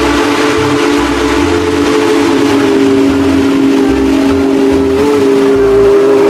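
Train whistle sounding one long held chord of several tones, with a low pulsing beneath it.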